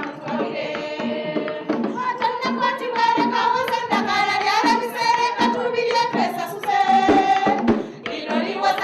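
A group of women singing together, accompanied by rhythmic hand-clapping.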